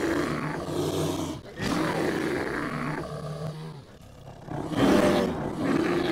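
Three long, deep animal roars, each about two seconds, with the last the loudest.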